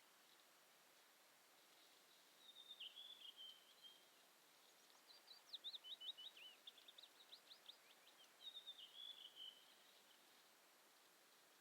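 Small songbird calling faintly in three bouts of thin, high notes: a slurred phrase, then a quick run of short down-sweeping notes, then another slurred phrase near the end, over a steady faint hiss.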